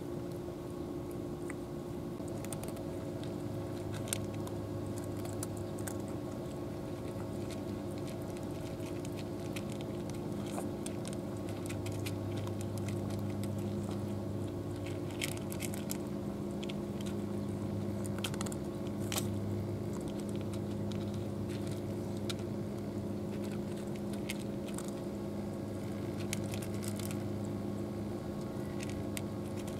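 Cats crunching dry kibble and eating wet food from plastic trays, a run of irregular short crunches and clicks. A steady low mechanical hum runs underneath.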